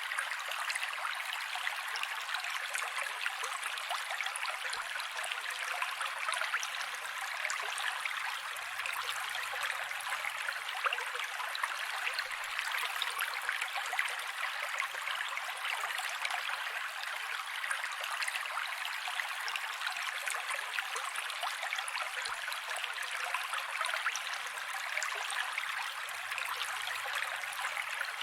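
Mountain creek water running steadily over rocks, an even rushing and babbling with no deep rumble.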